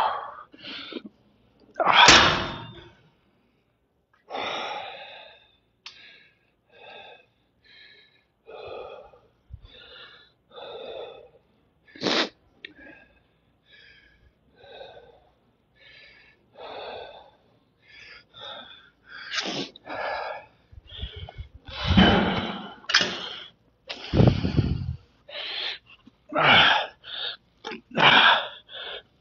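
A man's heavy breathing during a weight-training session: a run of sharp, noisy breaths, roughly one a second. They get louder and come more quickly in the last ten seconds as he works through a set of cable curls.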